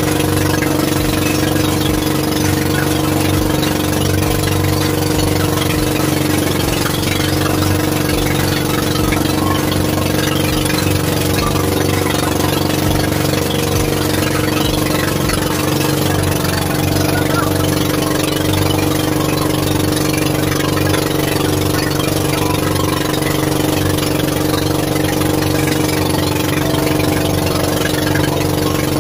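Fishing boat's engine running at a steady, unchanging speed: an even drone.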